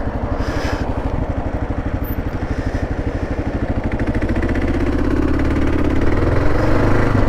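Kawasaki KLR 650's single-cylinder four-stroke engine running with a steady, fast thumping beat, getting louder and rising a little in pitch in the second half as it pulls harder.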